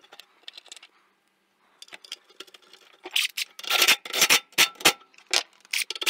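Hands rubbing and scraping at metal engine parts close to the microphone: faint at first, then a quick run of short scraping strokes, about three a second, from about three seconds in.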